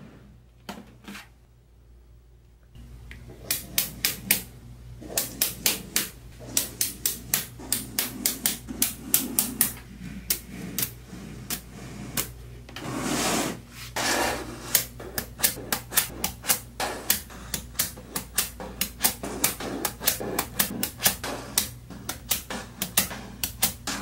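Small neodymium magnet balls clicking as they snap together onto a flat sheet of balls: sharp clicks at an uneven few per second, starting about three seconds in, with a longer rattle of many balls about halfway through.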